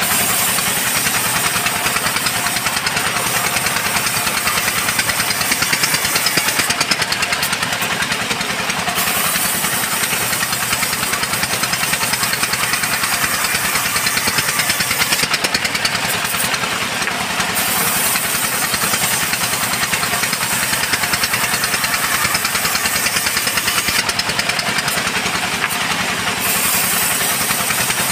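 Band sawmill running steadily with a rapid, even pulsing beat while its blade rips a mahogany beam lengthwise, the hiss of the cut thinning out briefly three times.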